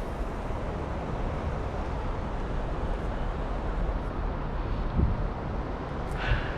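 Wind buffeting the microphone: a steady low rumbling noise, with a single low thump about five seconds in.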